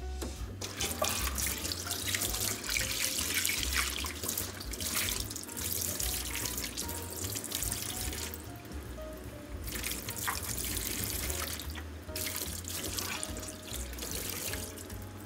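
Tap water running into a stainless steel sink and splashing over hands as they rinse a squid, with the splashing thinning out briefly twice, about eight and twelve seconds in. Quiet background music plays underneath.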